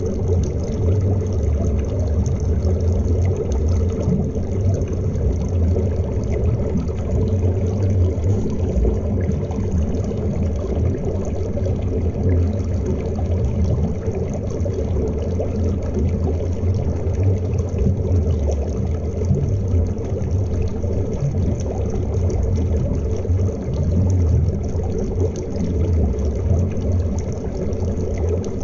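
Flowing river water heard from below the surface: a steady, low, dull rush of current with a faint bubbling over the pebble bed.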